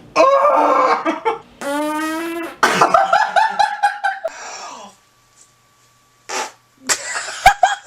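A man farting: long, loud, buzzing blasts with a steady pitch, broken into several pushes and ending in a rapid sputter over the first four seconds. After a short silence come a few shorter, sharper blasts near the end.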